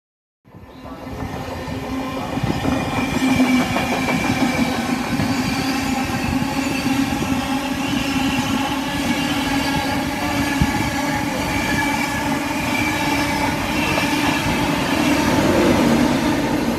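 InterCity 125 (HST) Class 43 power car's diesel engine running with a steady drone and a strong low tone, over the rumble and clatter of the train's wheels on the rails. It fades in over the first couple of seconds and grows a little louder near the end as the power car draws level.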